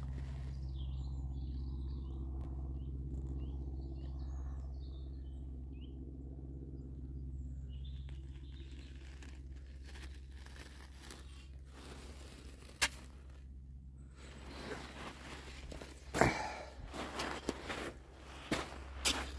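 Small birds chirping faintly over a steady low hum. From about three quarters of the way through, footsteps crunch irregularly over the shore.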